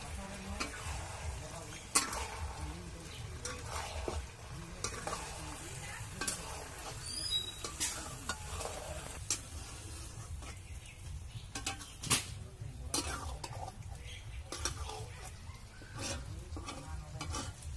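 Chicken skin and shredded banana stem sizzling in an iron wok while a spatula stirs them, scraping and knocking against the pan at irregular moments. The sharpest knocks come about 2 s and 12 s in.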